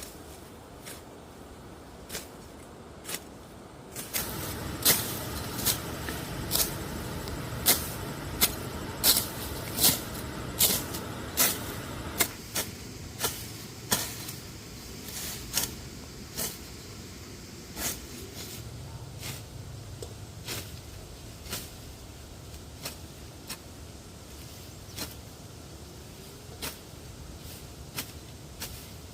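A series of sharp knocks at an uneven pace, about one or two a second and loudest in the first half, over a rough low rumbling noise that comes in about four seconds in and fades after about twelve seconds.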